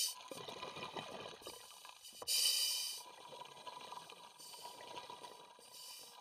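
Scuba breathing heard underwater: bursts of exhaled bubbles from a diver's regulator, one loud burst about two seconds in and fainter ones near the end, over a faint steady tone.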